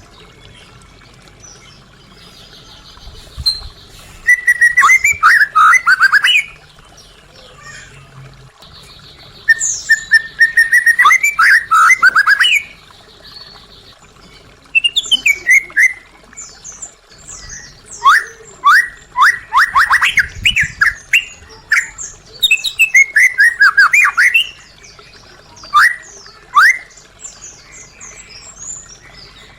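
White-rumped shama (murai batu) singing: about six loud bursts of fast, varied whistled and chattering notes, separated by short pauses.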